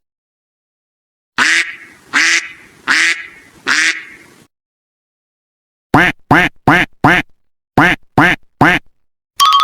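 Duck quacking in two sets: four loud, drawn-out quacks, then after a pause seven short, quick quacks in a group of four and a group of three. A music track with a fast beat cuts in near the end.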